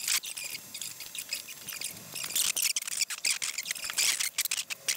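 Small screwdriver scraping and clicking against the screws and metal case of a Soyuz spacecraft clock: an irregular run of small clicks and scratches.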